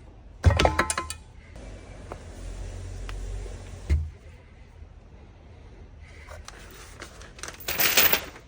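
Workshop handling noises: a cluster of sharp metallic clinks with brief ringing about half a second in, a thump about four seconds in, and a scraping rush near the end.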